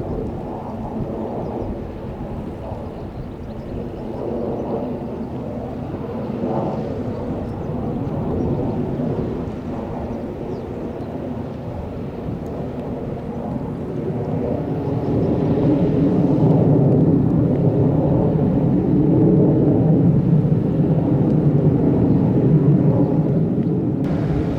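A boat's engine running with a steady low rumble as it passes on the river. It grows louder about halfway through and stays loud.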